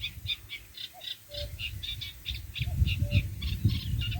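Reed warbler singing a fast, chattering run of notes, with a common cuckoo calling its two-note, falling "cuck-oo" again and again underneath. A low rumble grows louder from about halfway through.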